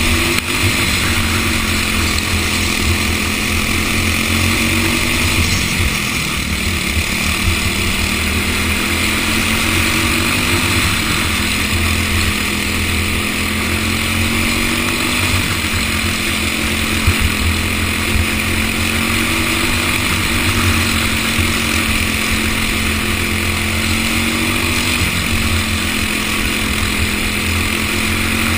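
An engine running steadily at a constant speed, its pitch wavering slightly up and down every few seconds.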